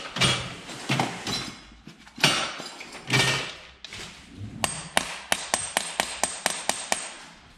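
A few loud clatters as tools are handled, then a quick series of about a dozen light hammer taps on a socket held on a rounded-off bolt on a Subaru boxer engine's cylinder head, about five taps a second.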